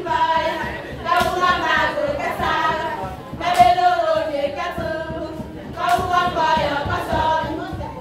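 A group of voices singing together in a chant-like song, short phrases recurring every couple of seconds. A sharp percussive beat falls about every second.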